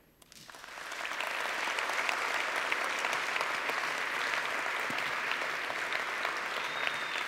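Audience applauding in a large hall, building up over the first second and then holding steady.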